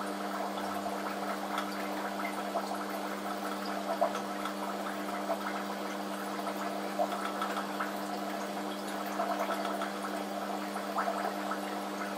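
Aquarium water bubbling and gurgling steadily with fine crackling pops, over a constant low hum.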